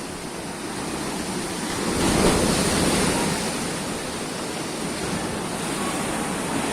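Big sea waves breaking and surging on the shore. One wave swells up loudest about two seconds in, then eases off into a steady wash of surf.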